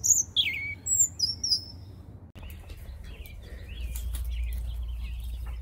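Small birds chirping: several loud, quick chirps and sweeping whistles in the first two seconds. Then fainter repeated chirps go on over a steady low rumble.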